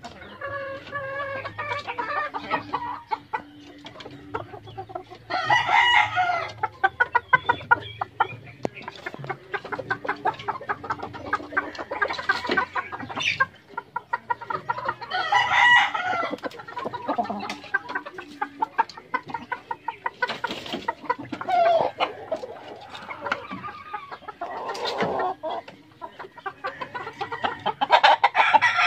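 Gamecock roosters crowing over and over, with clucking between the crows.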